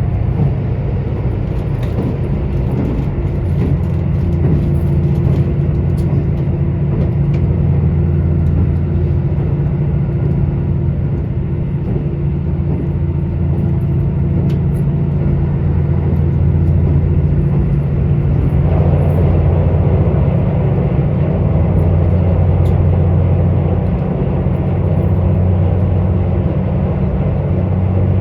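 KiHa 85 diesel railcar running at speed: the steady low drone of its Cummins diesel engines under wheel and rail noise. About two-thirds of the way through, a louder rushing rumble joins in.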